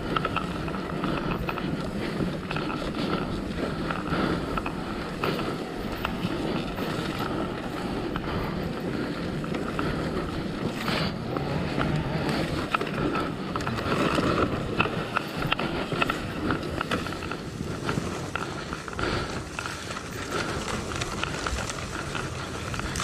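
Honda Tornado 250's single-cylinder engine running steadily under wind noise on the microphone, with many short knocks and rattles.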